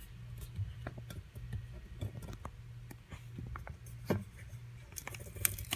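Scattered computer mouse clicks over a low steady hum, with a louder cluster of clicks and knocks near the end.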